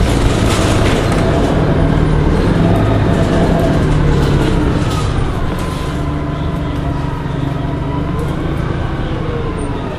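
Orion 05.501 CNG transit bus running loud, its engine and drivetrain sound with a whine that falls in pitch and then rises again as the bus's speed changes.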